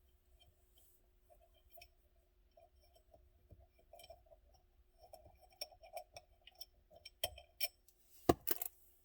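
Scattered faint clicks and light knocks from small parts being handled during steering-wheel disassembly. They grow busier about halfway through, with one sharper knock near the end.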